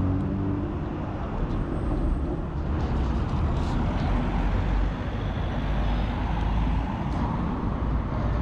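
City street noise: a steady low traffic rumble, with a car driving past.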